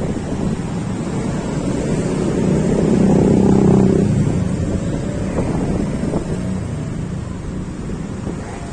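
Wind buffeting the microphone over the noise of riding in road traffic, with a vehicle engine growing louder for about a second and a half around three seconds in.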